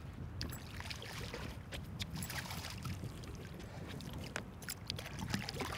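A hooked bass splashing at the surface beside the boat as it is reeled in: scattered short splashes over a steady low rumble of wind and water.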